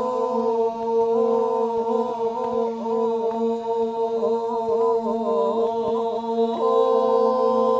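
Toraja Manimbong chant: a chorus of men holding a steady drone on a few sustained notes. About halfway through, the upper voices waver and slide in ornaments, then settle back onto the held chord near the end.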